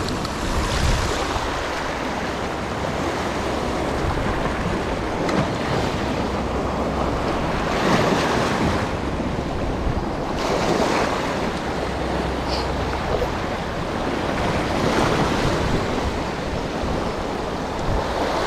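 Sea waves washing in, with wind buffeting the microphone; the surge swells and eases every few seconds.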